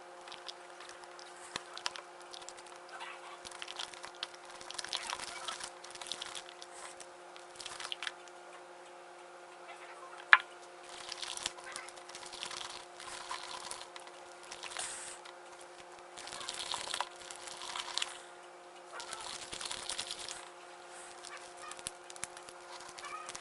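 Glue-and-detergent slime being mixed: irregular bursts of sticky, wet squelching and scraping, with one sharp click about ten seconds in.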